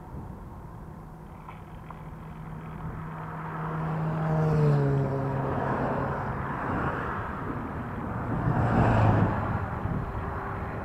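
Road traffic passing on a highway: a vehicle goes by about four and a half seconds in, its engine note dropping in pitch as it passes, and another passes near the end in a swell of tyre and engine noise over a steady road hiss.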